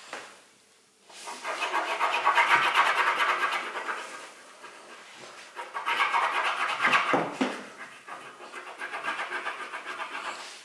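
Crayola wax crayon scribbling on paper laid on a wooden table: fast back-and-forth scratchy strokes. They come in two long bouts after a short pause at the start, with lighter strokes near the end.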